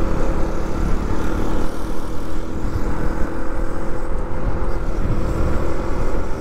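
Motorcycle riding at a steady cruise: its engine hums evenly under a strong, fluttering rush of wind on the microphone.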